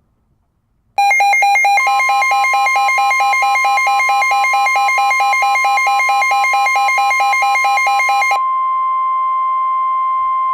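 Weather radio alert tones. A loud electronic alarm beeps, switching rapidly between two pitches, and the steady single-pitch weather radio warning alarm tone joins it about a second later. The beeping stops about eight seconds in, and the steady tone carries on alone until it cuts off near the end.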